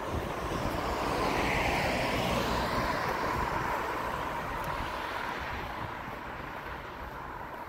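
A vehicle passing by: a rush of noise that swells over the first couple of seconds and then slowly fades, its pitch falling as it goes past.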